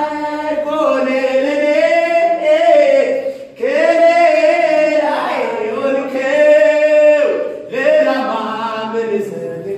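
A man's voice singing loudly in three long, held phrases, with a short break between each, as part of a sermon.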